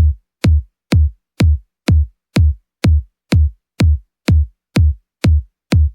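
Electronic kick drum playing alone on a steady four-on-the-floor beat, about two hits a second, each a short click dropping into a deep thud: the bare kick intro of a deep house track.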